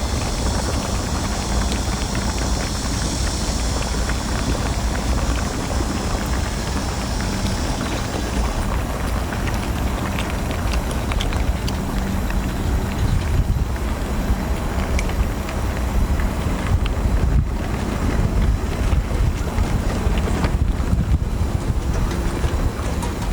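Steady wind buffeting the microphone, a heavy low rumble throughout. From about eight seconds in, scattered light clicks sound over it.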